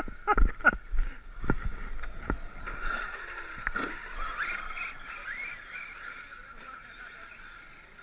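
Radio-controlled car running over forest ground: a quick series of knocks and thumps in the first two seconds or so, then fainter running noise that fades away.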